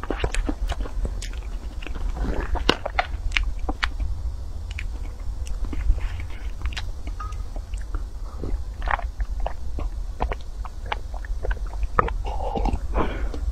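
Close-miked eating: wet chewing with many sharp, crisp clicks and crunches. Near the end, a sip or gulp from a glass bowl.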